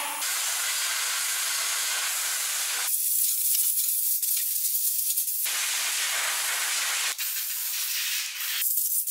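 Compressed air hissing from a pneumatic shop tool in several bursts of a second or more, with quieter gaps between.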